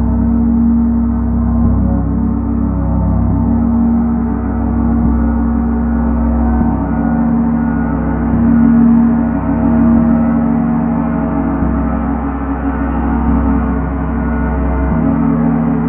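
Slow ambient drone music: sustained ringing tones over a deep low drone, with the bass notes shifting every few seconds and no strikes or beat.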